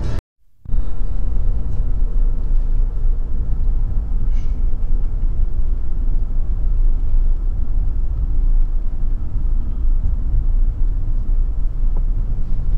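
Steady low rumble of a car driving on the road, heard from close by, with a brief dropout to silence right at the start.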